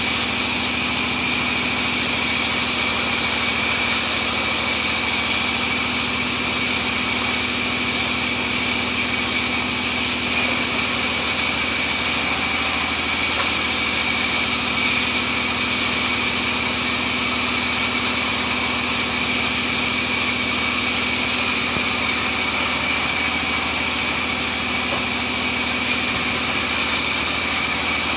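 Vertical band saw running steadily as teak boards are fed through the blade: a continuous motor hum with a high whine from the cutting. The sound dips slightly for a couple of seconds near the end.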